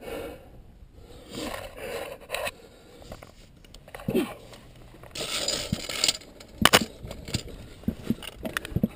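Climbing gear and gloves scraping and rustling against rock and the steel safety cable of a via ferrata as a climber pulls himself up a narrow chimney, with a few sharp clicks in the second half.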